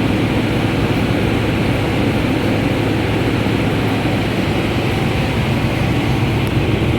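Ford EcoSport engine running steadily, close up, with a strong low hum. The engine has a misfire, which the mechanic traces to cylinder number 3.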